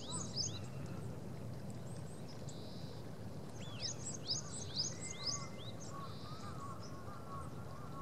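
Small birds chirping in quick high bursts, one cluster at the start and another about four seconds in, over steady low background noise; softer, lower call notes run through the second half.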